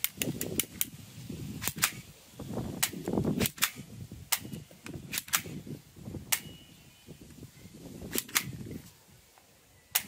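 Plastic toy pump-action shotgun, styled on a Remington 870, being racked: its fore-end slides back and forth with sharp plastic clacks, often two in quick succession, repeated many times. A low rustle of handling sits beneath.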